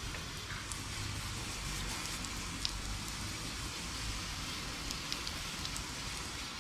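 Garden hose spray nozzle running a spray of fresh water over a fishing rod and spinning reel to rinse off salt, a steady hiss with a few faint ticks of droplets.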